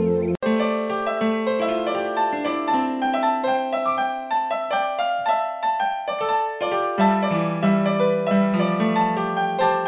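Piano music: many quick notes over slower bass notes, starting after a brief break about half a second in.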